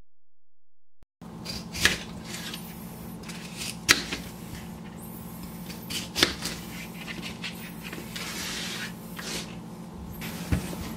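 A kitchen knife cutting red potatoes into chunks on a plastic cutting board, with a few sharp knocks of the blade on the board between softer slicing and scraping. It starts after about a second of silence, over a steady low hum.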